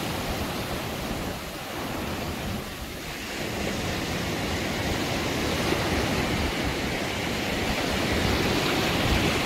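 Ocean surf washing and breaking in the shallows, a steady rushing noise that eases slightly about two seconds in and then builds again.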